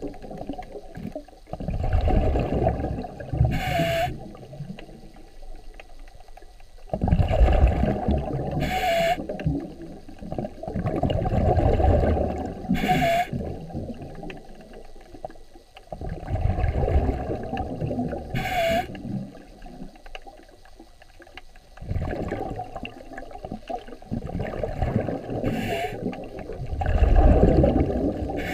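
Underwater bubbling in surges every four to five seconds, typical of a diver exhaling through a scuba regulator, with a short hiss at the end of several breaths.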